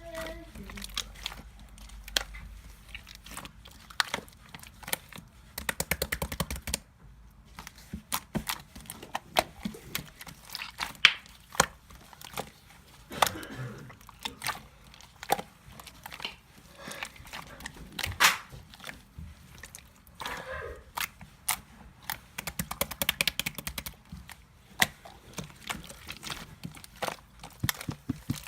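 Slime being squeezed and stretched by hand, giving irregular sticky clicks and crackles, with denser clusters of clicks every few seconds.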